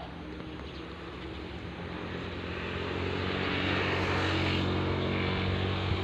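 A motor vehicle's engine passing, its steady hum growing louder from about two seconds in and loudest near the end.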